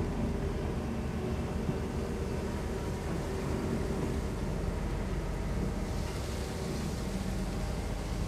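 Kobelco SK200 long-reach excavator's diesel engine running steadily under hydraulic load as the boom and arm swing and lower the bucket. A higher hiss joins in about six seconds in.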